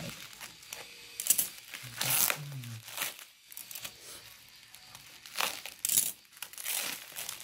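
Bubble wrap crinkling and rustling as it is cut with scissors and pulled apart, with a few sharp crackles and the tearing of plastic packing tape.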